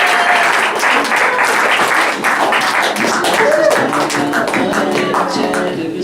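Audience applauding, the clapping thinning out as music with guitar starts up about halfway through.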